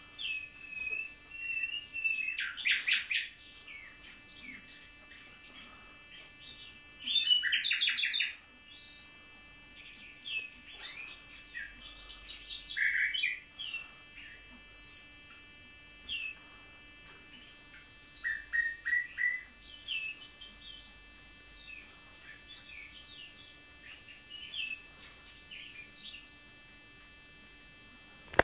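Common nightingale song: loud phrases of fast repeated notes and trills, each a second or two long, separated by pauses of a few seconds with quieter scattered notes between.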